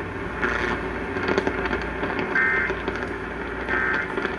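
Emergency Alert System end-of-message data bursts: short buzzy two-tone digital chirps about a second and a half apart, two of them in the second half, marking the end of the broadcast warning. Under them runs a steady low hum with radio static.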